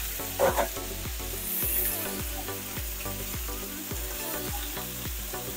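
Large pieces of grouper frying in oil in a wok, a steady sizzle, under background music with a steady beat.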